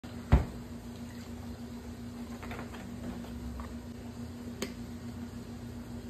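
Kitchen handling sounds: a sharp knock near the start, then a few light clicks and taps, over a steady low hum.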